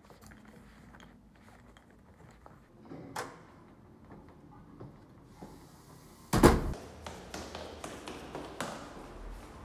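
Soft handling sounds and a light knock, then a single loud thump about six seconds in, followed by footsteps going down stone stairs, a step about every half second.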